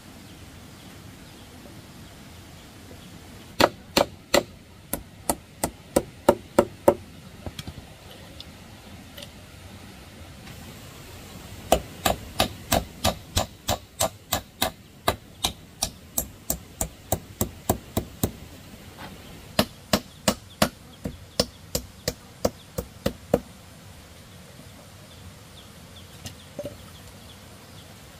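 Wooden-handled hammer striking nails, fastening plastic mesh to the coop's wooden frame: three runs of sharp, even blows at about three a second, with short pauses between runs.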